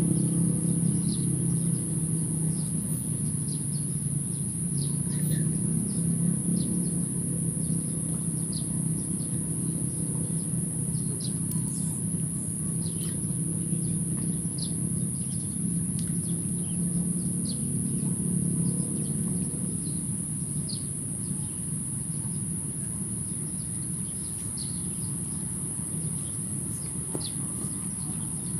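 Outdoor ambience: short bird chirps now and then over a steady low rumble, which eases off about two-thirds of the way through, and a constant high hiss.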